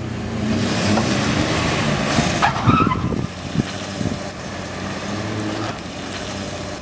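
GMC Jimmy SUV pulling away with its engine revving up, and a brief tire squeal about two and a half seconds in. The engine then settles to a steadier, fading note as it drives off.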